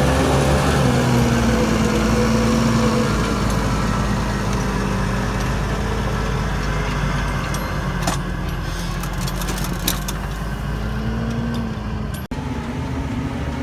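Farm tractor engine running steadily under load, its pitch drifting slightly, with a few light clicks or rattles about two-thirds of the way through. The sound drops out for an instant near the end, then the engine carries on at a slightly different tone.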